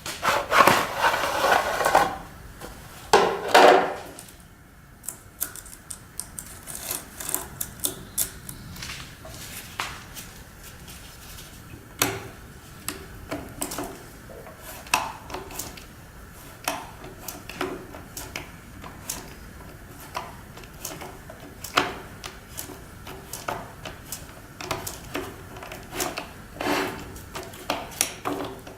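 Hands working on a Makita chainsaw during a tool-free chain change: irregular clicks, knocks and rubbing of the saw's parts. Two longer, louder rustling bursts come in the first four seconds.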